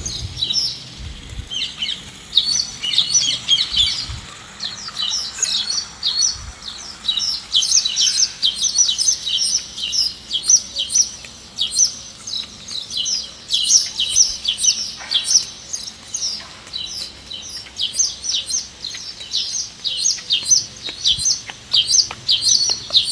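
Small birds chirping busily, a dense run of short, high chirps that keeps up throughout.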